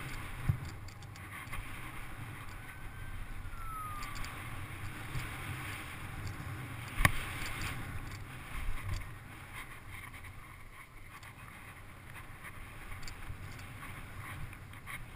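Mountain bike rolling fast down a dirt trail: steady tyre noise on packed dirt and gravel with wind on the camera microphone, scattered rattles and knocks from the bike, and one sharp loud clack about seven seconds in.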